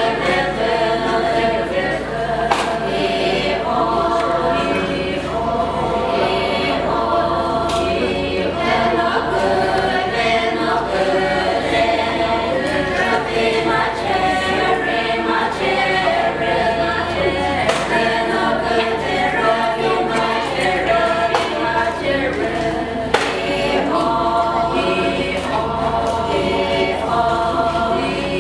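A women's choir singing a cappella through microphones, with steady sustained voices and no instruments to be heard.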